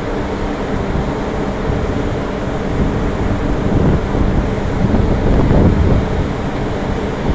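Steady low rumble of a ship's engine running, with wind buffeting the microphone in uneven gusts.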